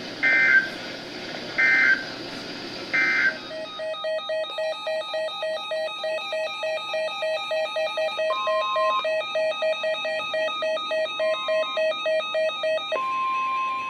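Emergency Alert System end-of-message data bursts: three short, harsh digital screeches about 1.3 seconds apart. They are followed by a fast pulsing electronic beep pattern of several stacked tones, two or three pulses a second, which ends in a steady single beep lasting about a second.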